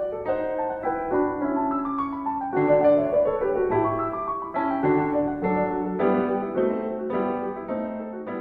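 Background piano music: a gentle melody with chords, fading out at the very end.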